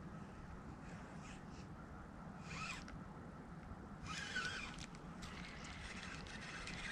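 Two faint, harsh bird calls, about two and a half and four seconds in, over a low steady background hum.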